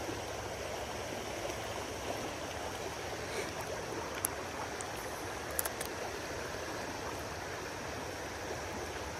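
Steady rushing of a shallow creek running fast over rocks in a riffle, with a few short, faint clicks about halfway through.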